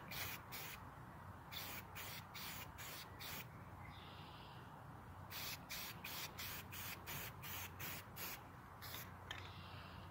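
Aerosol can of spray primer hissing in short, rapid spurts, several quick bursts in a row, then a pause, then another run, as the primer is dusted on in light passes.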